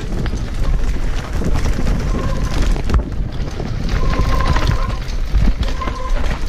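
Mountain bike descending rocky singletrack, with wind buffeting the microphone and the tyres and frame rattling over loose stones. A short high tone comes and goes three times.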